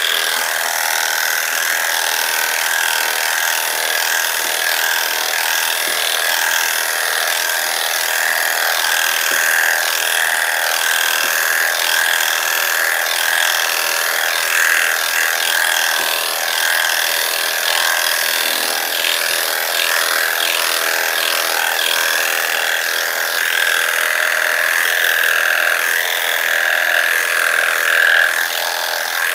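Electric dog clippers running with a steady high whine, the blade shearing through a standard poodle's coat in a body shavedown.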